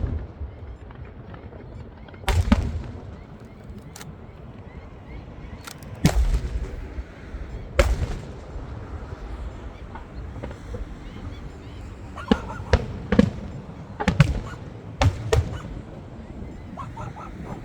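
Fireworks show: aerial shells bursting in sharp bangs at irregular intervals, each followed by a low rumbling echo. The bangs come singly in the first half and in quicker clusters of two or three in the second half.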